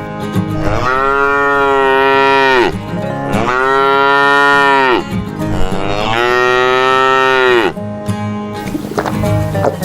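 Three long animal calls, each about two seconds and dropping in pitch at the end, over background music.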